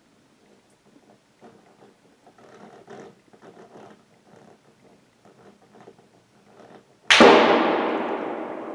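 A single close deer-rifle shot about seven seconds in: a sudden loud crack whose echo dies away slowly over the next couple of seconds.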